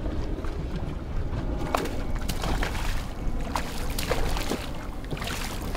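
Water sloshing and splashing against a boat hull as a small hooked blackfin tuna thrashes at the surface, over a steady low rumble, with a few faint sharp clicks scattered through.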